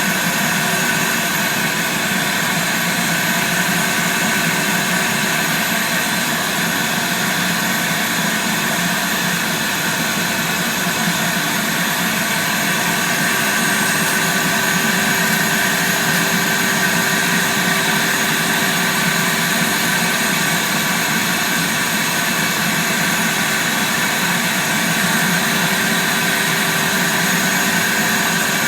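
Vacuum cleaner running steadily, with a corded electric drill spinning a drill brush scrubbing car carpet; a steady pitched hum comes in about halfway through.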